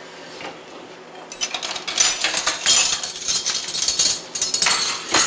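Metal kitchen utensils clattering and clinking, starting about a second and a half in.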